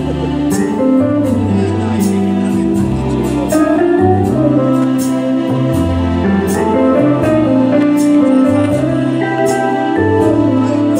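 Music with a changing bass line, held keyboard-like notes and a steady beat.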